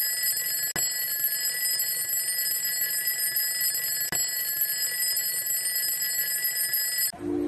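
Alarm clock ringing, a steady high-pitched ring broken by two short clicks, about a second in and about four seconds in, that cuts off suddenly near the end.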